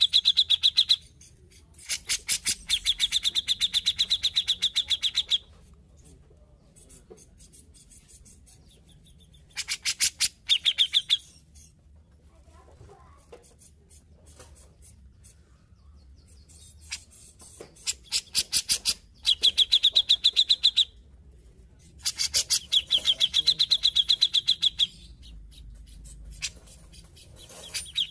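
Cucak jenggot (grey-cheeked bulbul) calling in loud bursts of rapid, chattering notes, about five bursts of one to three seconds each with quieter pauses between.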